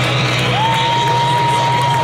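Stadium crowd noise with cheering, over which one long high note is held for about two seconds, sliding up into it about half a second in and falling off at the end.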